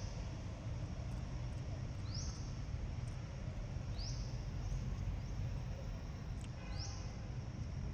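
A short, high rising chirp from an animal, repeated about every two seconds, with a brief lower call near the end, over steady low rumbling background noise.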